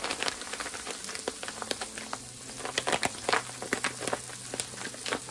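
Kraft-paper pouch of dried spice mix being shaken and opened, with irregular crinkling and rattling, over the crackle of asparagus frying in oil in a pan.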